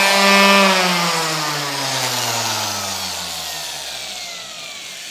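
Electric random orbital sander switched off about a second in, its motor hum falling steadily in pitch and fading as the pad winds down over about three seconds.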